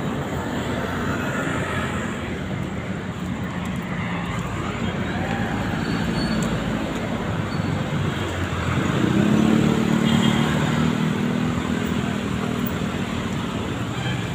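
Road traffic passing close by: car and motorcycle engines running and tyres on the road, with one vehicle's engine growing louder as it passes about nine to eleven seconds in.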